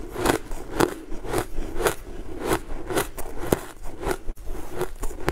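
Close-miked chewing of purple cake, with short wet mouth clicks coming about twice a second.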